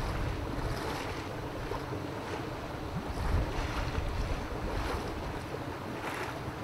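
Fishery pumps running with a steady noise, a heck of a noise.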